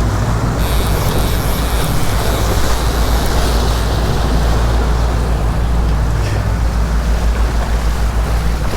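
Boat engine running steadily, with wind and water rushing past the hull.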